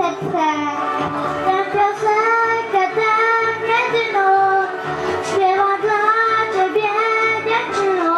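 A boy singing a song into a microphone over backing music with a steady low bass line.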